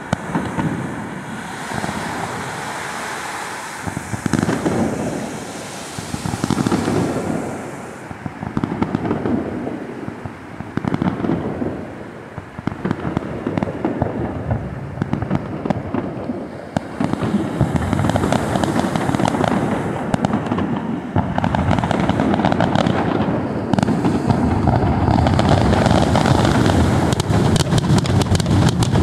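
Aerial fireworks bursting in quick succession with crackling. The bangs come thicker and louder from a little past halfway.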